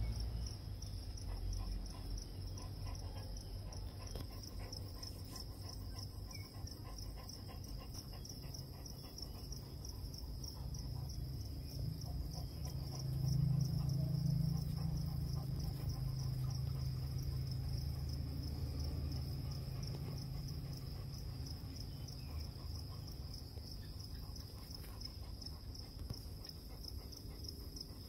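A steady, high-pitched insect trill, like a cricket's, runs throughout over a low rumble that grows louder about 13 seconds in and fades slowly.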